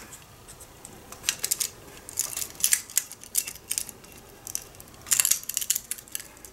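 Irregular light clicks and scrapes of an old crystal microphone's metal housing and loose parts being handled and worked back together, in small clusters about every second.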